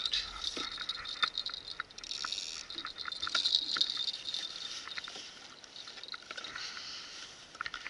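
Irregular light taps and clicks from a fish being handled and unhooked on a kayak, over water lapping and splashing against the hull.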